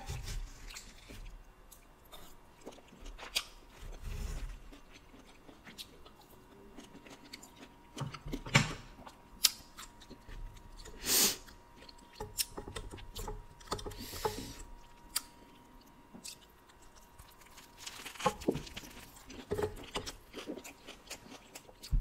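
Close-miked eating: a person chewing dragon fruit and a fried fish taco, with soft wet mouth clicks and small crunches coming irregularly. A few louder clusters come about a third of the way in, around halfway, and again near the end.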